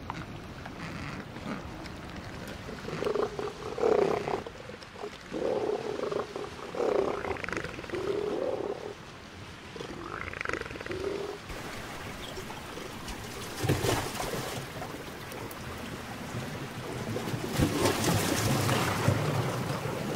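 A run of short, harsh calls from Antarctic wildlife, one after another through the first half, followed by two spells of rushing noise in the second half.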